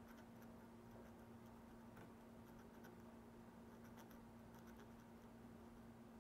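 Faint ticking and scratching of an acrylic paint marker's tip dabbing paint into the molded letters of a hard urethane screwdriver handle, over a faint steady hum.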